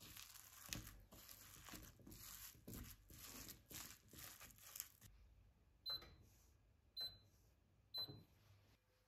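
A spatula stirring a thick grated pumpkin and cheese mixture in a glass bowl, a run of irregular scraping strokes. Then come three short beeps about a second apart from the touch controls of an electric glass hob as it is switched on.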